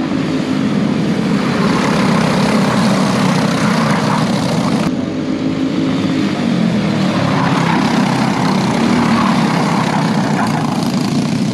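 Go-kart engines running hard as karts race past on the track, the sound swelling and easing as the pack goes by.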